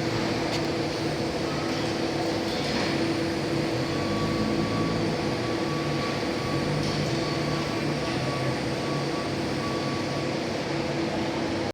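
Steady machine hum with a held low drone and a hiss, unchanging throughout.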